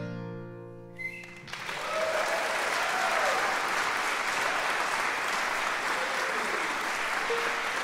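The last acoustic guitar and banjo chord rings out and fades. About a second and a half in, an audience breaks into steady applause, with a few whoops early on.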